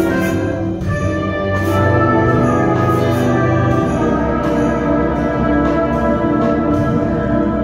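High-school concert band playing a holiday piece: held brass and woodwind chords over regular light percussion strikes. The strikes drop away near the end while the chord is held.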